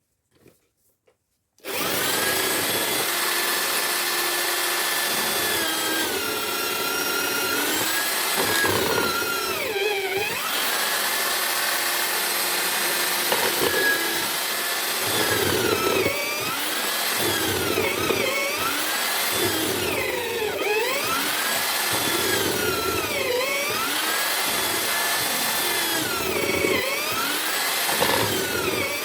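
Homemade drill-powered chisel mortiser switched on about two seconds in and running steadily. In the second half its pitch dips and recovers every couple of seconds as the motor slows under load with each plunge of the chisel bit into the wood.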